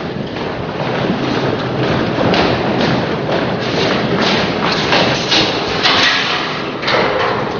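Loud, unbroken din of many closely packed thumps and bangs.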